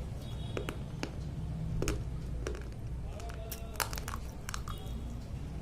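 Slate pencils being bitten and chewed: irregular sharp crunches and snaps, over a steady low hum.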